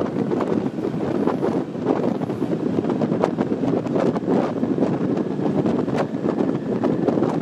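Wind rushing over a microphone held out of the window of a moving n-Wagen passenger coach, over the steady rumble of the train running along the track, with scattered short clicks throughout.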